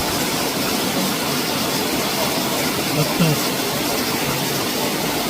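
Steady rushing of a waterfall, an even hiss of falling water with faint voices briefly heard through it.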